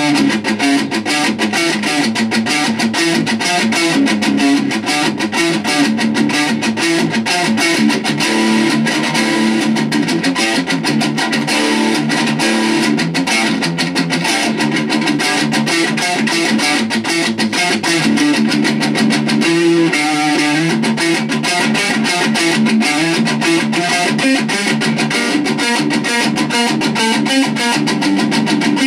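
Ibanez RG2EX1 electric guitar playing a fast metalcore riff, with rapid, dense picking that does not let up.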